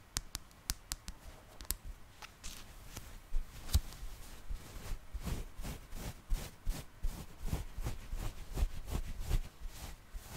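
Fingernails scratching and rubbing the fur of a yellow plush toy close to the microphone, in quick strokes. It begins as a run of separate light ticks and turns into denser scratching about two seconds in.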